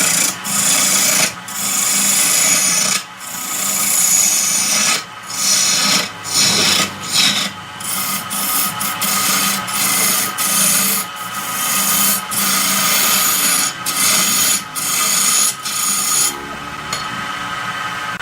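Wood lathe running with a steady motor hum while a tool scrapes and rasps the spinning wood in repeated passes of about a second each, with short breaks between them.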